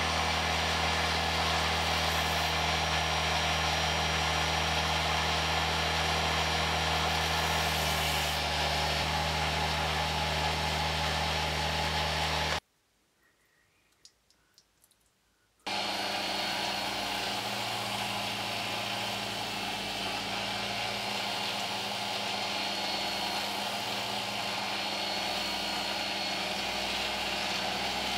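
Handheld rotary tool running steadily with a fine diamond burr engraving soft Welsh slate; it cuts off suddenly about twelve seconds in, leaving a few seconds of near silence with faint clicks, then starts again, now buffing the slate with a small 400-grit polishing-paper attachment.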